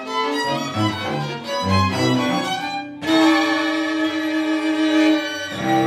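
String quartet (two violins, viola and cello) playing a busy passage of quick notes with the cello moving underneath. It breaks off suddenly about three seconds in and jumps to a louder held chord, which changes again near the end.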